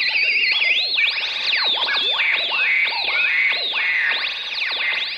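Electronic scanner sound effect: several high, warbling tones swooping rapidly up and down in pitch and overlapping, like a theremin or synthesizer, standing for a receiver sweeping for a signal.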